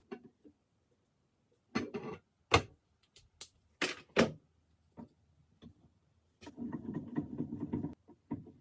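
Wood being handled in a workshop: several sharp knocks and clatters, then about a second and a half of rough scraping on wood near the end, followed by one more knock.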